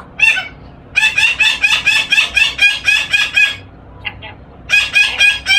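Pet hybrid lory giving its mimicked laugh: a short call, then a fast, high-pitched "ha-ha-ha" run of about five pulses a second for over two seconds, a brief pause, and a second run starting near the end.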